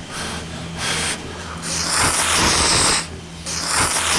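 Ramen noodles being slurped right up at a handheld recorder: two short slurps, then a long loud slurp a little under two seconds in, and another near the end.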